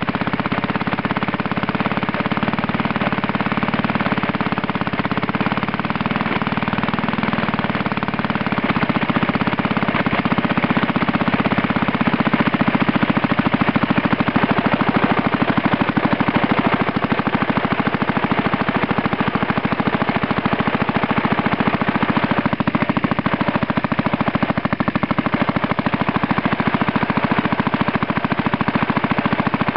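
Villiers Mk 15 small two-stroke stationary petrol engine running steadily, with a rapid, even popping from its exhaust. It gets a little louder from about ten seconds in.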